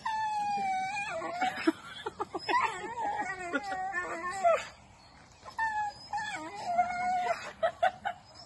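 A dog howling and whining in long, wavering cries that slide slightly down in pitch, with quick runs of short yelps between them. The cries break off for about a second partway through and then start again.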